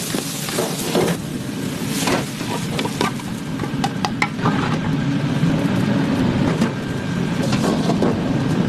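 Kitchen clatter: scattered clicks and clinks of utensils over a steady low drone.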